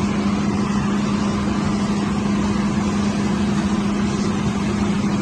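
John Deere combine harvester running steadily with its corn header engaged, cutting corn, a constant machine hum over a dense rushing noise.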